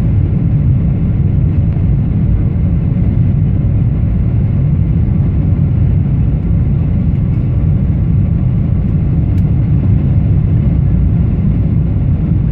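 Steady, loud low rumble of engine and airflow noise inside the cabin of a Boeing 777-300ER, heard from a window seat over the wing.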